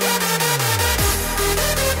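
Loud hardstyle dance music, with a deep bass note sliding down in pitch over the first second before the kick drum and bass line come back in.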